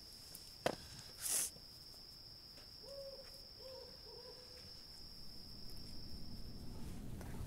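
Crickets trilling in a steady high tone that cuts off suddenly shortly before the end. A sharp click comes just under a second in, with a brief breathy rush just after it, then three faint short hoot-like tones about three to four seconds in.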